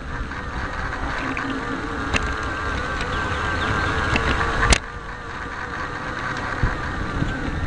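Small electric motor and gearing of a Bachmann large-scale rail truck running along the track, a steady wavering whine picked up from on board, with wheels clicking over the rails. A sharp click comes nearly five seconds in, after which it runs a little quieter.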